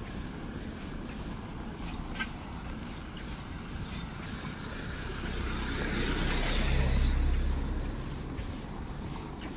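A motor vehicle passing close on a city street, its engine rumble and tyre hiss building to a peak about seven seconds in and then fading, over a steady background of traffic.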